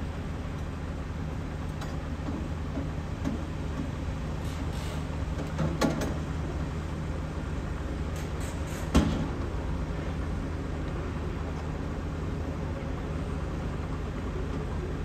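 Hitachi ZAXIS 210K hydraulic excavator's diesel engine running at a steady idle, with two sharp knocks about six and nine seconds in.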